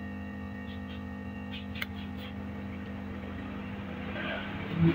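Quick 850A hot air rework station blowing hot air onto a circuit board, a steady hum from its blower. A brief click about two seconds in and a short thump near the end.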